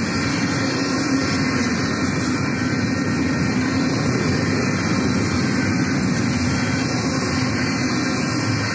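Double-stack intermodal freight train rolling through a grade crossing, a steady rolling noise of cars on the rails, with the crossing's electronic warning bells ringing.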